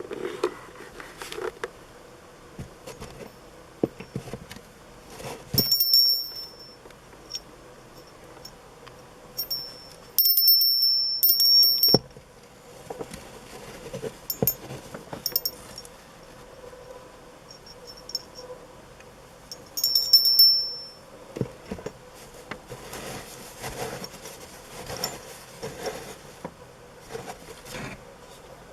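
Small brass figurine call bell rung by hand in three spells of high-pitched ringing: about six seconds in, a longer ring of about two seconds around ten seconds in, and another about twenty seconds in. Light knocks and rustles of the bell being handled come between the rings.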